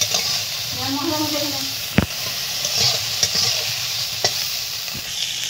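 Soya chunks sizzling as they fry in a metal kadai, stirred and turned with a metal spatula. The spatula clinks sharply against the pan a few times, loudest about two seconds in.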